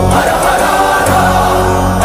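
Devotional Telugu film song: a choir chanting over heavy drums and deep bass.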